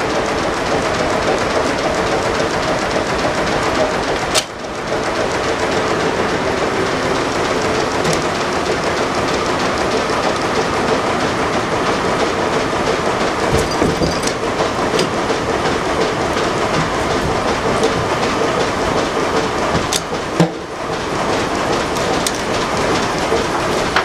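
Steam-powered sawmill running: the log carriage clattering along its track with the saw and machinery going, a steady din with a low hum. A sharp knock sounds a little after four seconds and again near twenty seconds.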